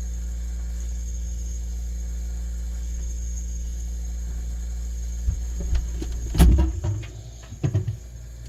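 Steady low hum, then a few clicks and knocks from handling, the loudest knock about six and a half seconds in; after it the hum drops away.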